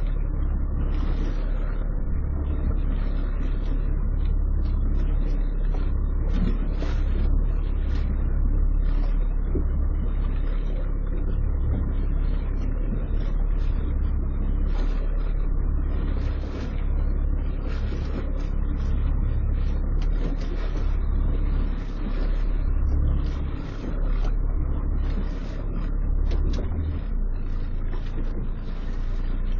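A small fishing boat's engine running, heard as a steady low rumble with an uneven hiss of wind and water over it.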